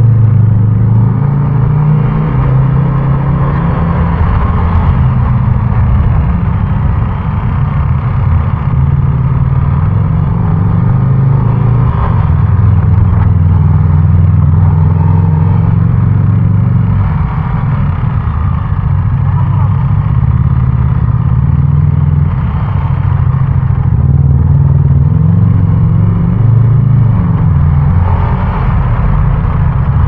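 Yamaha Aerox 155 scooter's single-cylinder engine running under way, its note rising and falling with the throttle, over tyre and traffic noise.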